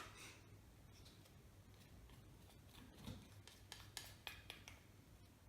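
Faint, scattered clicks and scrapes of a spoon against a container as a tablespoon of almond butter is spooned in, over near-silent room tone.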